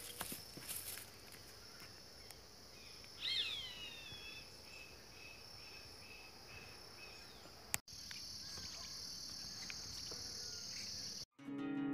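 Insects trilling steadily, a high constant drone, with a bird calling about three seconds in: a few falling notes, then a run of short repeated notes. After a brief cut near eight seconds the insect trill is louder, and acoustic guitar music starts just before the end.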